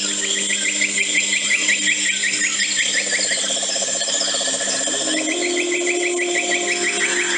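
Wildlife calls in rapid, even trills of about ten pulses a second: one high run that stops about halfway, a lower trill through the middle, and a second high run starting near the end, over a steady low hum of tones.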